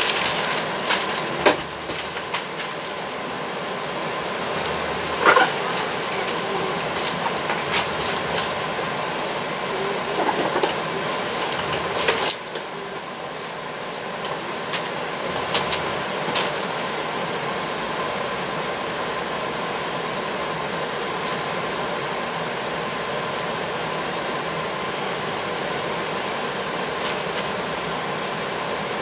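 Wrapping paper rustling and tearing as presents are unwrapped, in scattered short bursts over roughly the first half, over a steady fan or air-conditioning hum that runs on alone afterwards.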